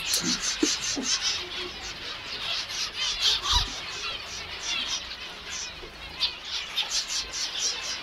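Many finches chirping together: short, high, downward-sweeping calls overlapping all the while.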